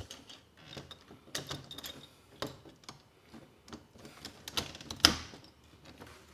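Irregular small clicks and knocks of metal door-lock hardware being handled as a Schlage paddle-handle lockset's inside handle is fitted over its spindle, with one louder knock about five seconds in.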